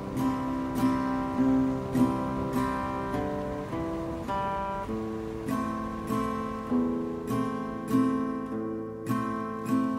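Acoustic guitar music, chords strummed at a steady, even pace with the chord changing every few seconds.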